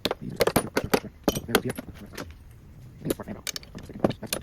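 Metal hand tools clinking and clattering as they are handled and set down, a quick irregular run of sharp clicks and knocks.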